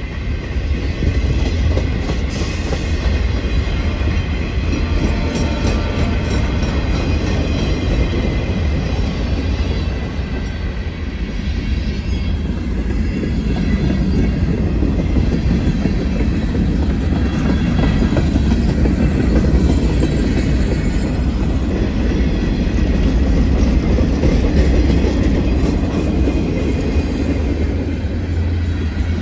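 Manifest freight train's cars rolling past: a steady low rumble of steel wheels on rail, with a rhythmic clicking of wheels over rail joints during the first several seconds.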